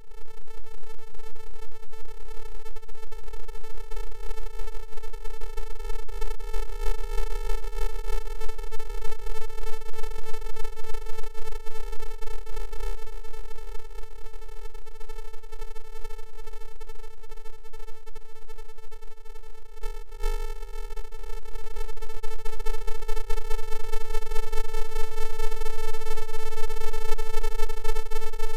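A continuous electronic drone: one steady buzzing tone with even overtones over a low hum, unchanging in pitch. It dips briefly about two-thirds through, then grows louder.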